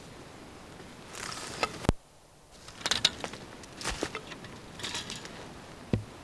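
Wooden frame saw being picked up and handled: irregular clicks, rattles and wooden knocks from the frame and its steel blade, with a sharp knock about two seconds in and a dull thump near the end.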